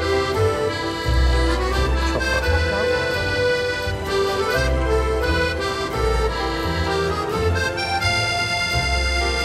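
Music led by an accordion, with a pulsing bass line underneath.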